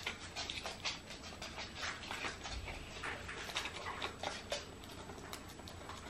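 African grey parrot working at a cardboard foraging box with its beak: irregular clicks, taps and scratches, several a second, as it digs for the almonds hidden inside.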